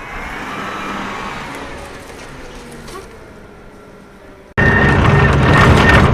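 Engine noise of a vehicle, swelling and then fading away. About four and a half seconds in, it cuts abruptly to a much louder, steady engine drone with a constant whine.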